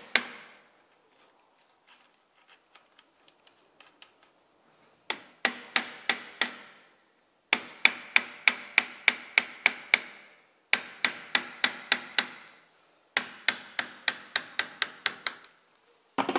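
A hammer striking a steel punch held against the fifth-gear shift fork of a Daihatsu Sirion gearbox to drive its pin out, giving sharp, ringing metal-on-metal taps. There is one blow at the start, then four runs of quick blows at about four a second with short pauses between, and two more near the end.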